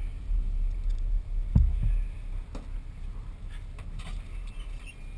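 Steady low rumble of a fishing boat at sea. About a second and a half in comes a heavy thump with a smaller one just after, and a few light knocks follow.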